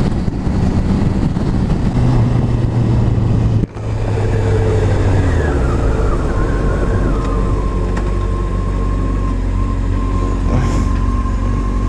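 Honda CBR600 F4i inline-four motorcycle engine running under wind noise while cruising, then, after a cut about four seconds in, slowing with its pitch falling and settling to a low steady run in slow traffic. A steady high tone comes in about halfway through.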